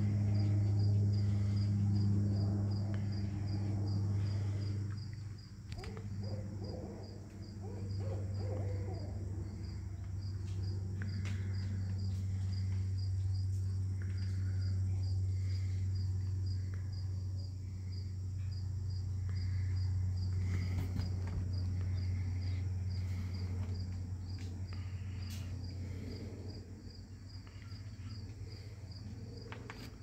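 An owl hooting from the trees, over a rapid, evenly pulsing insect chorus and a steady low hum.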